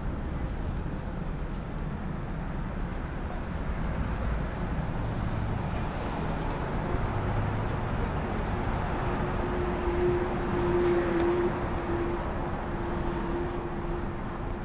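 City street traffic: a steady rumble of passing vehicles. About two-thirds of the way in, a steady engine-like hum joins it and holds.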